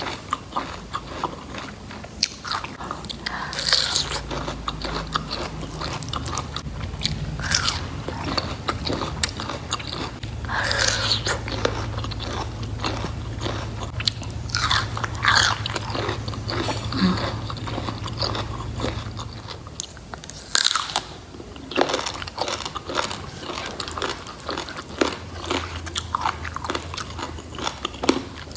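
Close-up crunching and chewing of raw rattan shoot (umbut rotan), with crisp bites at irregular intervals. A low hum sits underneath for much of it.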